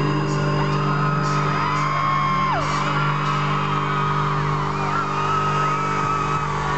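A steady, low electronic drone plays over the concert PA, with a crowd of fans screaming and whooping over it in high cries that slide up and down.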